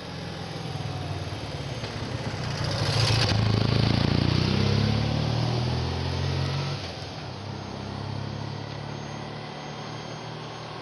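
A motor vehicle driving past on the road: its engine hum grows louder to a peak about three to five seconds in, with a rush of tyre and wind noise as it passes, then fades away by about seven seconds, leaving a fainter engine hum.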